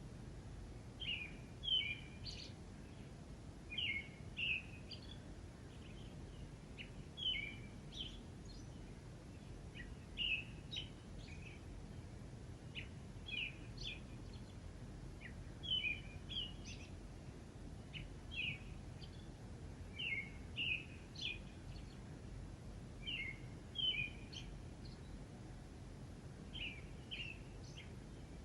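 Songbirds chirping in short, quick phrases that recur every two to three seconds over a steady low background hiss.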